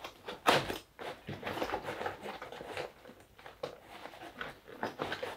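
YKK #10 zippers on the sides of a plate carrier being zipped closed by hand: rasping runs of zipper teeth with nylon fabric rustling and handling noise. A sharp knock about half a second in.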